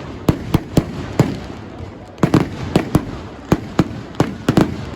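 Fireworks going off: about a dozen sharp bangs at irregular intervals, each trailing a short echo, with a brief lull a little past the first second.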